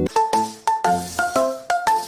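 Background music: a light, bouncy tune of short notes that start sharply and quickly fade, about four or five notes a second.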